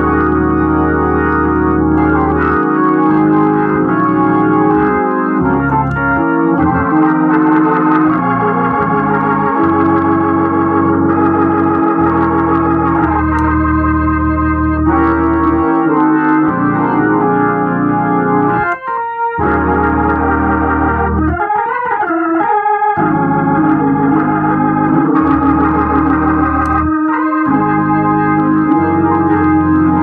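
Hammond organ played through a Leslie 122 speaker cabinet whose amplifier runs on a jumped-in power transformer, in a sound check of the amplifier. Held chords over bass notes change every second or two, with a brief break about nineteen seconds in.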